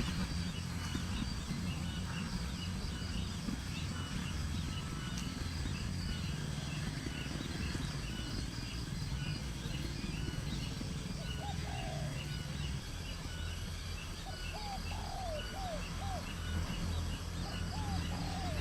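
Birds calling: short high chirps repeat throughout, and from about eleven seconds in a series of short, downward-curving lower calls joins them. A steady low rumble runs underneath.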